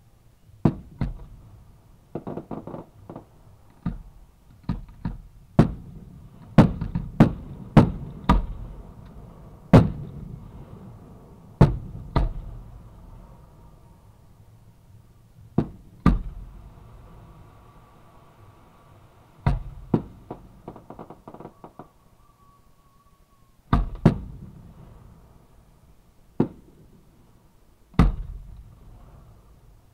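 Aerial firework shells launching and bursting close by: a run of sharp, irregular bangs, often in quick clusters with short gaps between, each trailing off in a rumbling echo.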